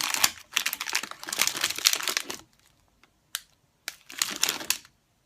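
Plastic sweet wrappers crinkling as wrapped sweets are handled. The sound is a dense crackle for the first couple of seconds, then a few short clicks and another brief crackle about four seconds in.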